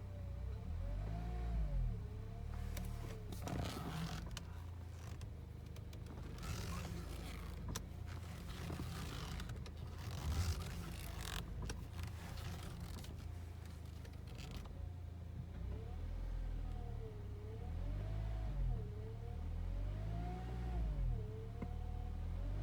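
Power steering pump on a 2006 Honda Accord Euro whining over the running engine, its pitch wavering up and down in waves; the noise persists despite a new pump and O-rings. Through the middle stretch, scraping and rustling noises sound over the whine.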